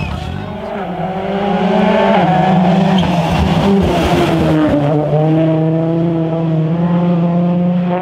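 Ford Fiesta RS WRC rally car's turbocharged four-cylinder engine at high revs, its note dropping at gear changes about two and about five seconds in, then holding steady, over the hiss of tyres on wet tarmac.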